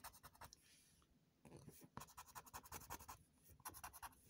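Scratch-off lottery ticket being scratched with the edge of a wooden stick: faint, quick scraping strokes in three short runs, the longest lasting about two seconds in the middle.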